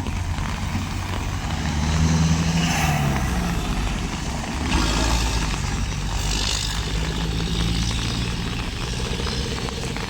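Heavy diesel engine of earth-moving machinery running, a steady low drone that swells around two seconds in, with a few short bursts of hiss.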